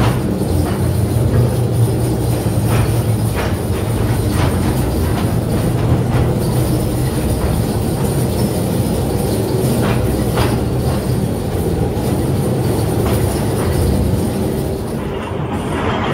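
Steel mine cars rolling on rails behind an electric mine locomotive inside a coal-mine tunnel: a steady low rumble with scattered sharp clicks and knocks from the wheels over the track.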